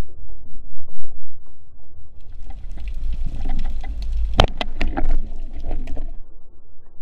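Underwater rumble of water moving against the camera, with a cluster of sharp clicks and knocks from about two to six seconds in, the loudest a single sharp knock about four and a half seconds in.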